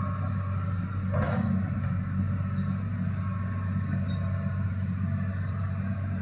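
Hitachi excavator's diesel engine running steadily, with a brief louder noise about a second in.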